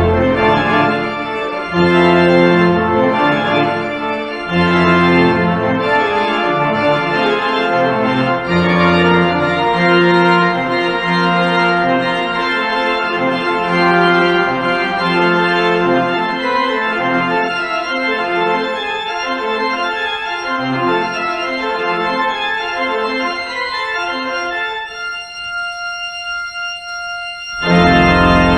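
Organ music, slow sustained chords over deep bass notes. The bass drops out partway, and near the end only a few high notes are held more softly before a loud full chord with deep bass comes in.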